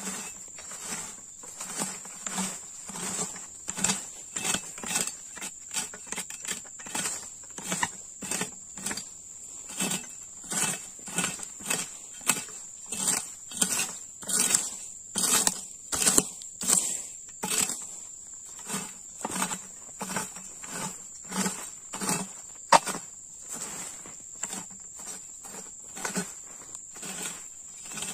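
Long-handled flat-bladed scraping hoe scraping and chopping weeds and soil at the base of an oil palm, in regular strokes of about one and a half to two a second. A steady high insect buzz runs underneath, and a single sharp click comes about three-quarters of the way through.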